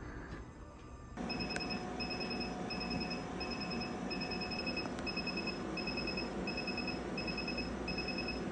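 Alma Soprano Titanium diode laser beeping as it fires during a facial treatment: short, high, fluttering beeps about twice a second, starting about a second in over a steady whir.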